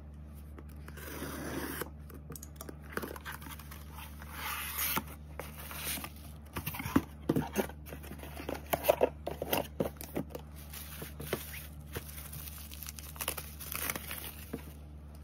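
Packing tape being slit and torn off a cardboard box, with hissing tearing strokes in the first few seconds, then a bubble-wrapped item being handled, its plastic wrap crinkling and crackling in a run of sharp clicks.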